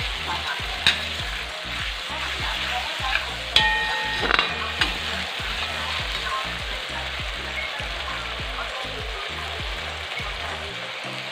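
Masala paste of ground onion, garlic and tomato sizzling steadily in hot oil in a large metal kadhai as a metal spatula stirs it. A few sharp clinks and scrapes of the spatula on the pan come about a second in and again between three and a half and five seconds in, one of them ringing briefly.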